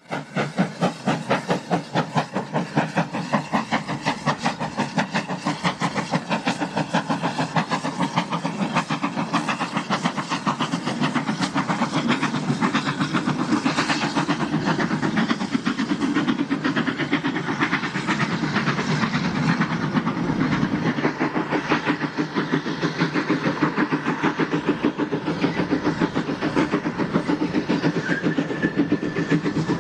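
Former GWR 0-6-0 pannier tank steam locomotive No. 6430 working hard: a rapid, even beat of chuffs from its exhaust that runs on steadily.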